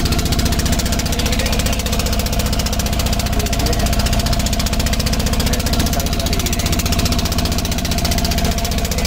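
A wooden fishing boat's engine running steadily with a fast, even pulse.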